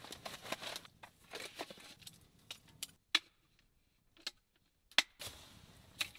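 Small folding camp table being unpacked and set up: rustling as it is handled, then a handful of sharp metal clicks and clacks as the folding legs and roll-up slatted top snap into place.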